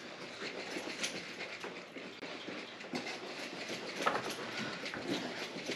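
One-gallon jug of honey and cold brew coffee shaken hard by hand to mix it for mead, the liquid sloshing and knocking in quick, uneven strokes, several a second.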